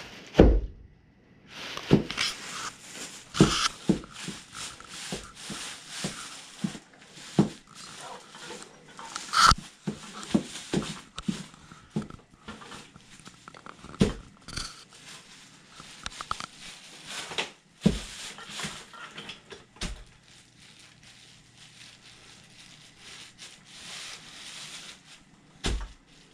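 Black Sendra cowboy boots stomping and grinding a squashed cheeseburger on plastic sheeting: irregular thuds and heavier stomps with the plastic crinkling and rustling underfoot.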